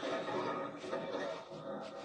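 Sleeping pit bull breathing out softly between snores: a breathy rush of air without the buzzing snore tone.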